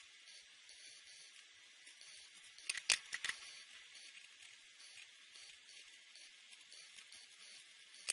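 A few sharp plastic clicks about three seconds in, as felt-tip marker caps are handled while swapping markers. A faint steady hiss runs under them.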